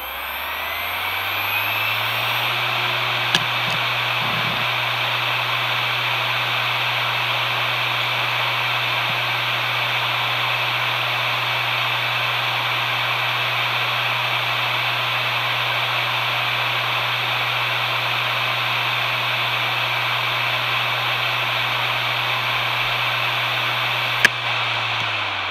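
Maxtor MaXLine III 250GB SATA hard drive finishing its spin-up with a rising whine, then running at full speed with a steady hum and an airy whoosh from the spinning platters. It is a healthy drive. Single sharp clicks come about three seconds in and again near the end, just as it begins to wind down.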